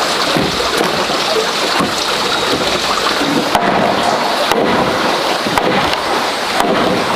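Steady rushing noise of running water, at an even level throughout.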